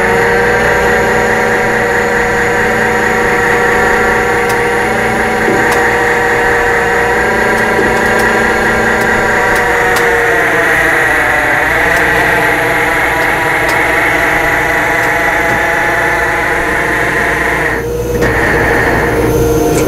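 The F550 rollback carrier's hydraulic system, its PTO-driven pump and winch, whines steadily as the loaded F250 is shifted into position on the bed. The whine sags in pitch under load about eleven seconds in, then cuts off about eighteen seconds in.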